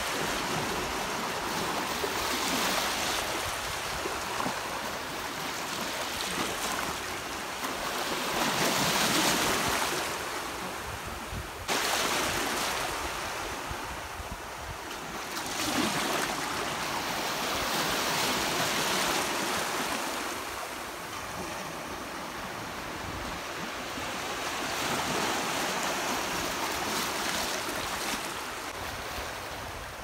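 Shallow sea surf washing in and out around the feet, its hiss swelling and ebbing every few seconds, with wind rumbling on the microphone. The sound breaks off abruptly for a moment about twelve seconds in.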